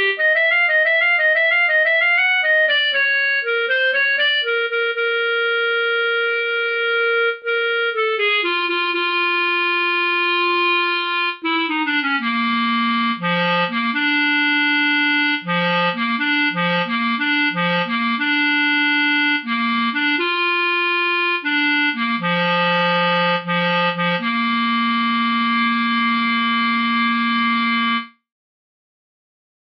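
Solo clarinet playing a boogie melody one note at a time: quick alternating triplet figures, then longer phrases, ending on a long held low note that cuts off near the end.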